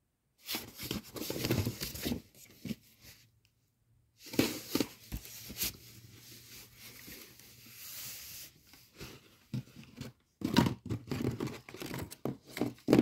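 Packaging handled by hand, rustling in three bouts, the middle one a longer, steadier stretch.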